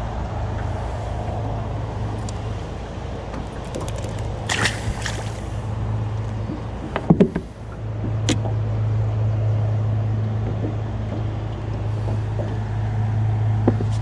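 Boat motor humming steadily at a low pitch, dipping briefly just past the middle and coming back stronger. A few sharp clicks and knocks sound over it, the loudest cluster just past the middle.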